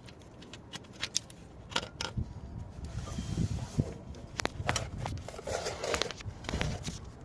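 Scattered sharp clicks and knocks with a couple of short scrapes, from hand tools working on metal parts.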